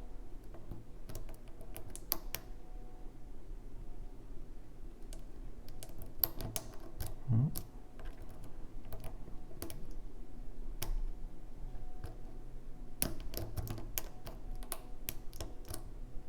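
Irregular light metallic clicks and scrapes of a lock pick and tension wrench working the pins of a six-pin challenge lock during single-pin picking.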